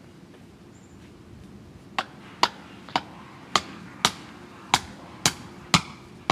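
Hammer striking metal landscape edging and its stake: about nine sharp, ringing blows, roughly two a second, starting about two seconds in.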